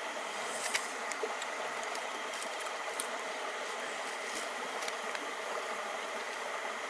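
Steady rushing of stream water, with a few sharp crackles from a wood fire scattered through it.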